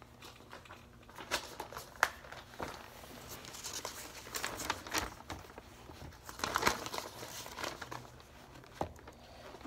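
Adidas Gazelle sneakers shuffling and scuffing on a hard floor, with a scatter of sharp knocks and taps and stretches of rustling and crinkling as the feet and shoes shift.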